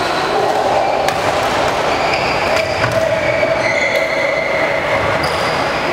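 Badminton rackets striking a shuttlecock, sharp cracks about a second in and again around three and four seconds in. Under them runs a loud steady hall din with drawn-out high squeaks coming and going.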